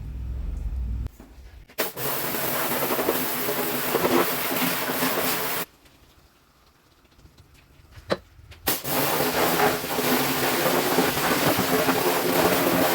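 Blasting gun spraying the underside of a wheel arch to strip old coating: two long, steady blasts of hiss with a pause between them, after a low rumble at the start.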